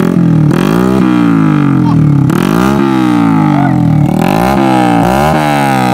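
Yamaha Jupiter Z underbone motorcycle's four-stroke single-cylinder engine, fitted with an aftermarket racing exhaust, being revved in repeated throttle blips: the revs shoot up and drop back again. The blips come quicker near the end.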